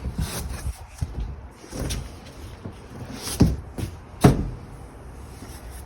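A cardboard box and the drop spreader parts in it being handled: rustling with a few knocks and thumps, the two loudest about three and a half and four and a quarter seconds in.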